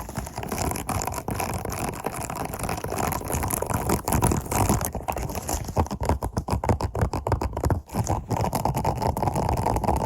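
Scratching on a silicone plate close to the microphone, in fast continuous strokes that grow choppier and more separate from about five seconds in. It is heard more in the right ear.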